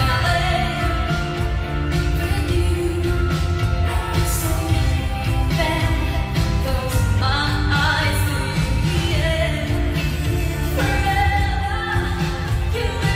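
A woman singing a pop song live with a backing band, the bass heavy.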